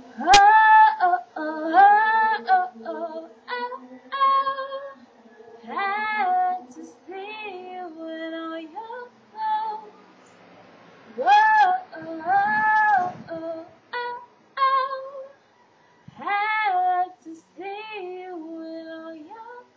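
A woman singing a slow melody in phrases separated by short pauses, with a sharp click right at the start and a faint steady hum underneath.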